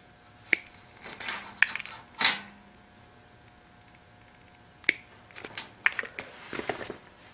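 Hand wire strippers closing on thin wire leads and pulling the insulation off: several sharp clicks with short scraping between them.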